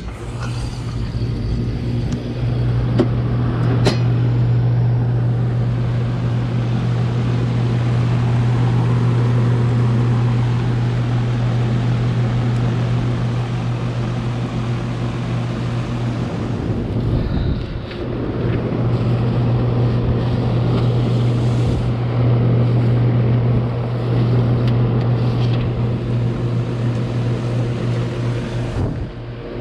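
Heat pump outdoor unit running after power is switched back on: a steady low hum with the rush of air from the freshly replaced condenser fan motor and blade. A couple of sharp clicks come a few seconds in, and the hum dips briefly about two-thirds of the way through.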